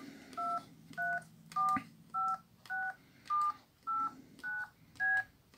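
Keypad tones of a Jinga Simple F100n push-button mobile phone: about nine short two-tone dialing beeps at an even pace, one per key as the digit keys are pressed in order from 1 upward. It is a keypad test, and the keys all respond.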